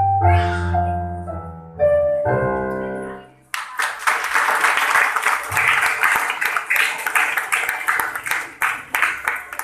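Electronic keyboard playing the last notes of a piece in a piano voice, ending on a held chord that fades away. About three and a half seconds in, applause breaks out and continues.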